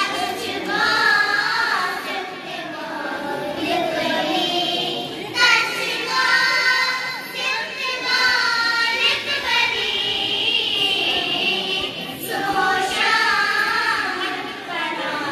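A group of girls singing a Kashmiri devotional song (manqabat) together in long held phrases, with short breaks between lines about five and twelve seconds in.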